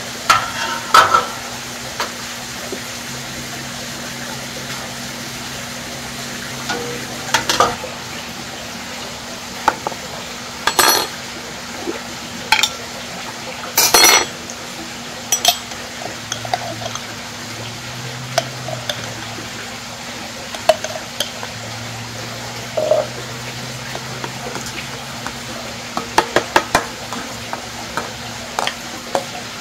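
Kitchen utensils and cookware clinking and knocking: scattered sharp clinks of metal against pots and dishes, loudest about fourteen seconds in and in a quick run of clinks near the end, over a steady background hiss and low hum.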